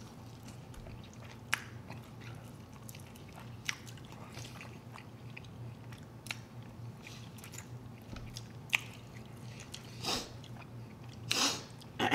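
Close-miked eating sounds of people chewing and biting into sauced chicken wings: scattered sharp mouth clicks over a faint low hum, with a few louder, longer bursts near the end.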